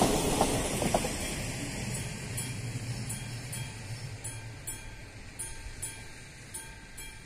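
Classic mechanical bell of an AŽD 71 level-crossing signal striking at a steady even pace, still sounding the warning after the train. Under it, a RegioNova class 814 diesel railcar's rumble dies away over the first two seconds.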